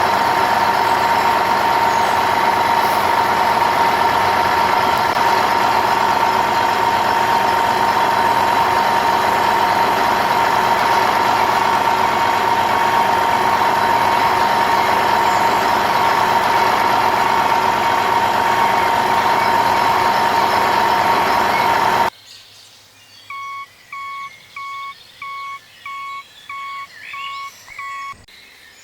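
Toy construction vehicle running with a steady whine that cuts off suddenly about three-quarters of the way through. It is followed by a string of about nine short, evenly spaced beeps, like a reversing beeper.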